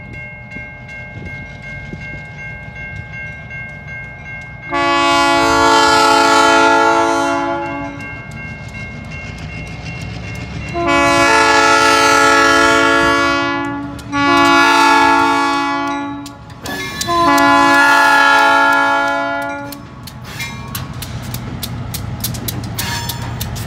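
Diesel locomotive horn (Cincinnati Eastern GP15-1) sounding the grade-crossing signal as the train pulls over a road crossing: long, long, short, long, under a steady diesel engine rumble. Near the end the wheels start clicking rhythmically over the crossing and rail joints, the clicks coming quicker.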